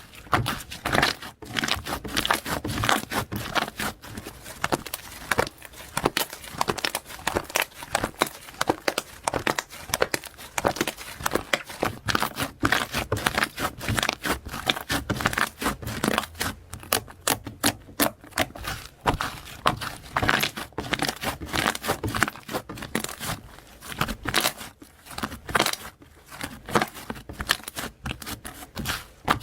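Slime being squished and worked by hand: a continuous stream of sticky clicks and crackles.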